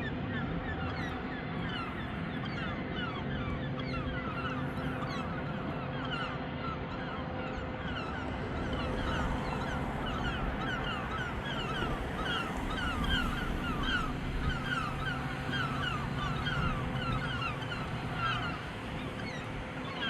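Many birds calling at once, a dense run of short, overlapping honk-like calls, over a faint low steady hum.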